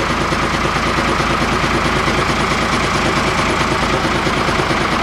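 1959 Bedford army truck's engine idling steadily, heard from inside the cab.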